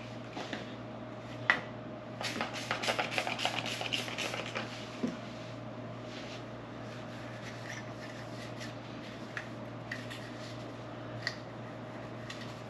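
Car door handle being worked off the door by hand. There is a sharp click, then a couple of seconds of rattling and scraping, another click, and a few faint ticks.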